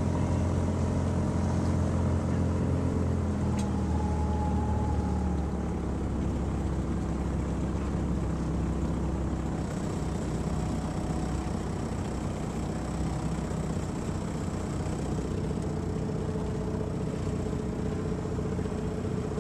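A boat engine running steadily, a low hum whose pitch shifts slightly a few times, over a hiss of wind and water.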